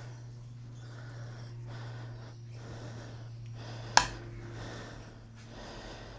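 Quiet tool-handling noises from work on a motorcycle's handlebar clamp, with a steady low hum underneath and one sharp click about four seconds in.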